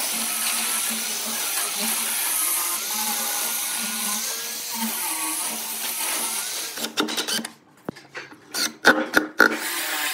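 Angle grinder with a sanding disc running, sanding a wooden edge, its motor whine wavering up and down as it is pressed on and eased off. It stops about seven seconds in, followed by a few sharp knocks and clatters.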